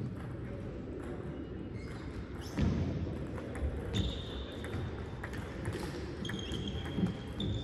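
Table tennis ball clicking off the table and paddles in an irregular string of light taps over a steady murmur of room noise. There are a couple of thin, high squeaks about four seconds in and again near the end.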